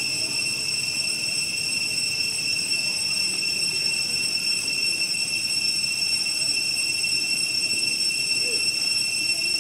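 Cicadas droning in a steady, unbroken high pitch.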